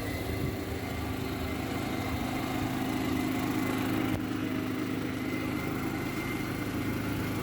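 Generator engine running at a steady idle, an even, continuous hum.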